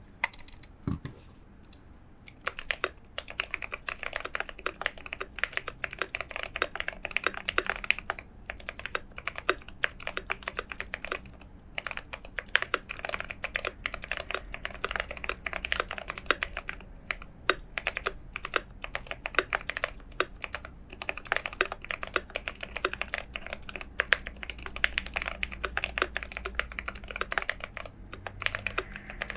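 Typing on a GMMK Pro mechanical keyboard with a brass plate, Zealios V2 tactile switches lubed with Krytox 205 and PBT keycaps: a rapid, continuous patter of keystrokes that starts in earnest a couple of seconds in, after a few single presses.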